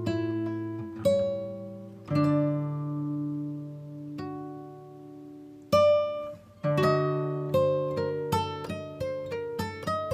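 Background music on acoustic guitar: a few plucked chords left to ring, then a quicker run of single notes, about three a second, in the second half.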